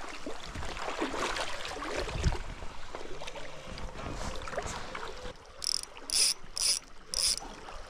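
Fishing reel drag buzzing in four short bursts as a hooked fish pulls line off the reel, over the rush of river water.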